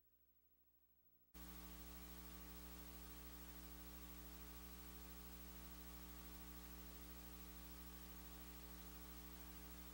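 Near silence, then about a second in a faint, steady electrical mains hum with hiss cuts in suddenly and holds unchanged.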